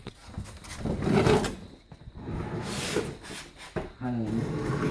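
A refrigerator being pulled out from the wall, scraping and bumping along the floor in uneven bursts.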